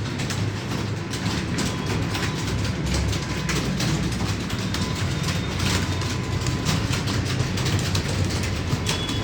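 Many computer keyboards being typed on at once: a dense, steady clatter of key clicks.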